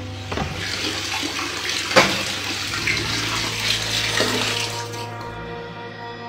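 Water running from a plastic tap onto a tiled bathroom floor, an even splashing hiss that stops near the end, with a sharp click about two seconds in. Soft background music underneath.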